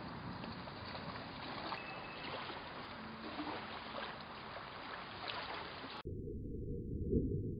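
Steady wind noise and open-air hiss with no distinct event. About six seconds in, the sound abruptly turns muffled, leaving only the low end, and a low rumble swells briefly near the end.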